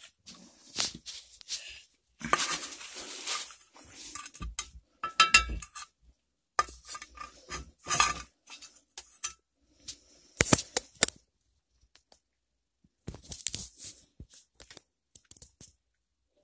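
Glass preserving jars and metal screw lids being handled and moved on a shelf: irregular clinks, knocks and scraping, with a few sharper clinks about five and ten seconds in.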